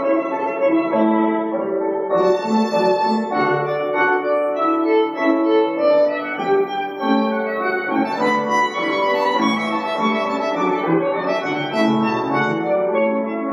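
Violin played with the bow in a classical piece, over an accompaniment that holds lower notes at the same time, the notes changing continuously.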